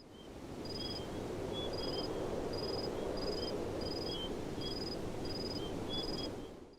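Outdoor wildlife recording: a steady low rumbling hiss, with a short high chirp repeating about every two-thirds of a second and scattered lower chirps. It fades in at the start and fades out near the end.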